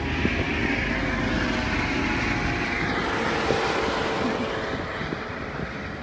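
Steady engine drone with a hum of several steady tones, fading somewhat over the last couple of seconds.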